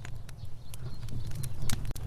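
Wood fire burning with a low, steady rumble of flame and irregular sharp crackles and pops, the loudest pop near the end.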